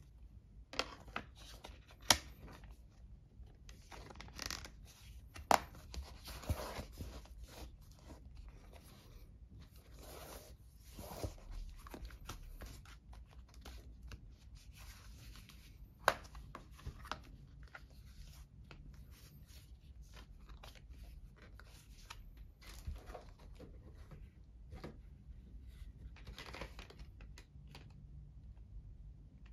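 Handling noise as a tablet is pressed into a hard plastic case shell and the case's faux-leather folio cover is closed over it: irregular scraping and rustling with a few sharp clicks, the loudest about two, five and sixteen seconds in.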